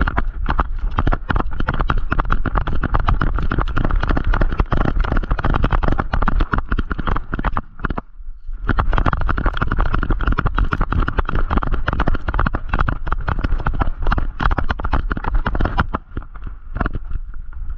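A GoPro strapped to a running dog's back, knocking and rattling against its harness with every stride as her paws pound the ground, in a fast, loud, unbroken run of thuds. There is a short lull about eight seconds in.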